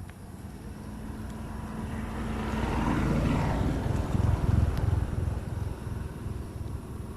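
A motor vehicle passing by: it grows louder to a peak about three seconds in, then fades away with a low rumble.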